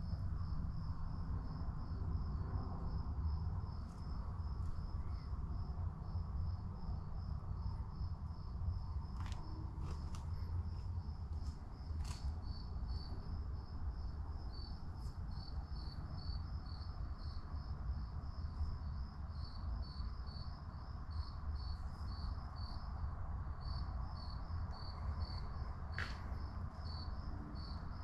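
Crickets chirping steadily at night, about three high chirps a second, with a second, slightly lower-pitched chirper joining about halfway through. A steady low rumble runs underneath, with a few faint clicks.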